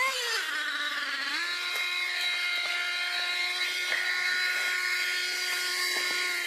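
LRP S8BX 1/8-scale nitro buggy's glow engine running hard: its pitch dips and climbs in the first second and a half, then holds a steady high-pitched whine.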